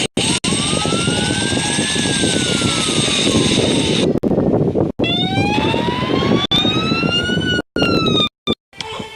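Aircraft engine noise: a loud, steady rush with a whine that slowly rises and then falls in pitch, twice, broken by several abrupt cuts.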